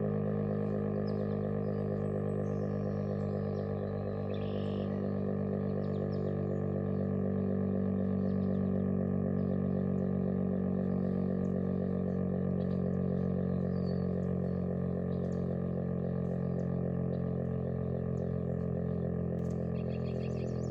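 Federal Signal STH-10 rotating dual-tone warning siren sounding its daily test blast at full speed, a steady held chord of tones with only slight swells in loudness.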